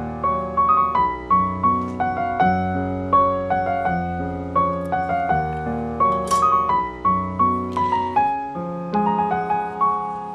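Background piano music: a gentle melody of single notes and chords. Two brief hissing sounds cut in a little past the middle.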